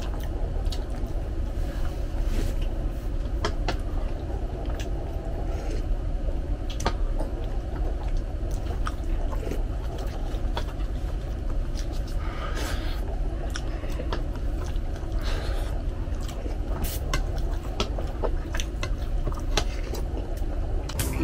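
Eating sounds at a table: scattered light clicks of spoons against bowls, with chewing and sipping of beef broth, over a steady low rumble.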